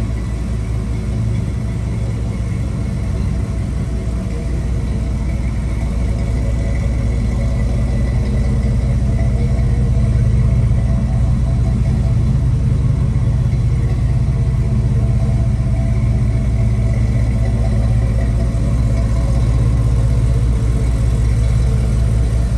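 1978 Ford F-150 pickup's engine idling steadily, a little louder from about ten seconds in.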